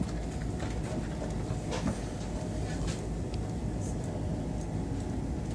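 Steady low rumble of a German ICE high-speed train running over the track, heard from inside a passenger car, with a few light clicks.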